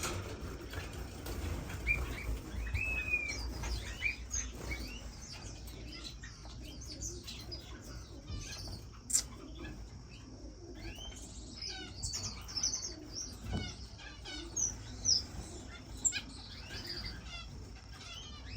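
A roomful of caged finches chirping and calling, many short high calls overlapping, with quick runs of repeated notes. There is a single knock about two-thirds of the way through.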